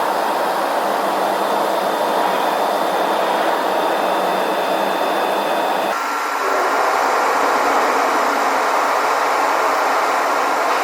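Steady rushing cabin noise inside a Boeing 787-8 airliner on its descent, airflow and engine noise heard from a passenger seat. About six seconds in, the noise changes abruptly, becoming slightly louder, with a faint steady whine above it.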